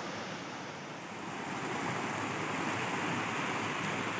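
Fast-flowing river rushing over rocks, a steady hiss of running water that grows a little louder between one and two seconds in.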